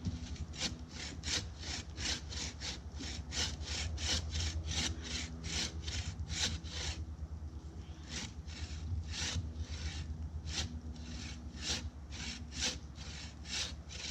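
Hand bow saw cutting through a tree trunk, the blade rasping through the wood in quick, even back-and-forth strokes, about three a second, with a short pause about seven seconds in.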